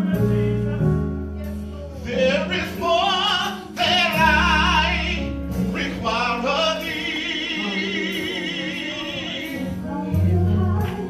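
Gospel worship singing with accompaniment: voices hold long, wavering notes with heavy vibrato over sustained low bass notes.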